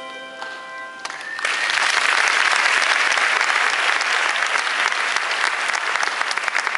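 The final chord of a handbell choir rings and fades away. After about a second an audience breaks into applause, and the clapping stays steady and dense.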